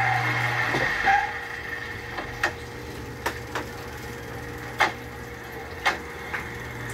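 Tableware clinking at a dinner table: about six short, sharp clicks and taps at uneven intervals, like utensils, plates and a glass knocking on a table. A television's sound plays underneath for about a second before dropping away.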